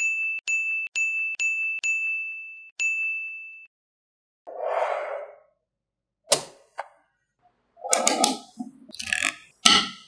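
A run of identical bright ding sound effects, about two a second, each ringing out briefly. Then a short soft whoosh, and from about six seconds in, repeated sharp clicks and clacks of small magnetic balls snapping together.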